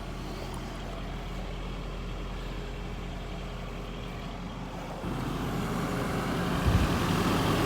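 Nissan Hardbody pickup's engine idling steadily. About five seconds in the sound grows louder, with a brief low thump shortly before the end.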